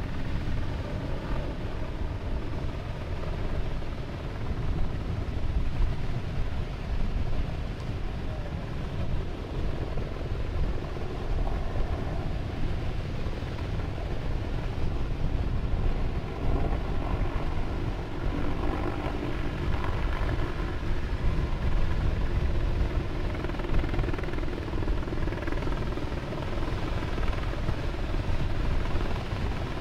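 Steady low drone of a UHAC amphibious vehicle's engine and paddle tracks as it churns through the water. A pitched engine tone becomes clearer in the second half, over a rumbling low-end noise.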